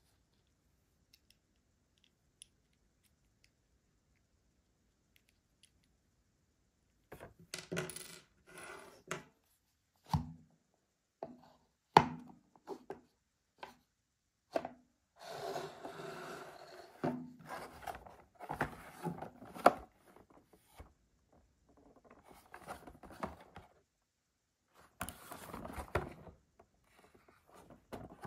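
Small plastic toys and their packaging being handled: sharp clicks and taps of small hard pieces set down, with stretches of rustling, starting about seven seconds in.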